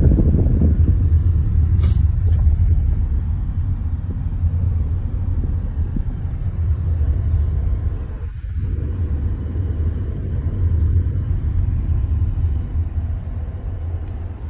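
Steady low rumble of a car driving along a road, with a single short click about two seconds in.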